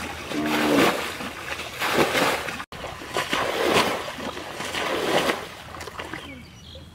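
Muddy water splashing and sloshing as it is scooped and thrown out of a shallow pool with a round woven basket, one splash after another. The splashing fades near the end.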